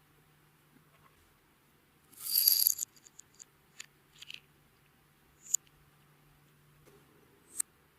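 Hands working clear slime: a loud crackling burst about two seconds in, then scattered small sticky clicks and pops.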